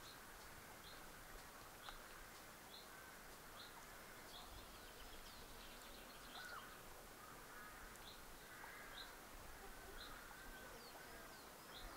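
Faint birdsong: a small bird repeats a short high note about once a second, with other birds twittering more quietly beneath it.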